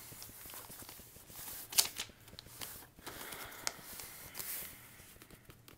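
Sheet of paper being folded and creased by hand: soft rustling with scattered sharp crinkles and taps, the sharpest about two seconds in.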